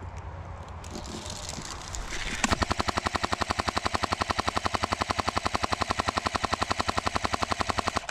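Airsoft M249 electric gun firing one long full-auto burst, a rapid, even chatter of shots lasting about five and a half seconds and starting about two and a half seconds in.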